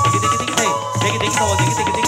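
Kathak dance accompaniment music: tabla playing under a melodic line of held and gliding notes.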